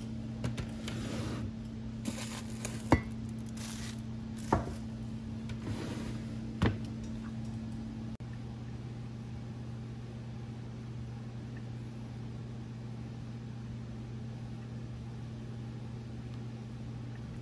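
Steady electrical hum of a running appliance, with a few light knocks and clicks in the first seven seconds.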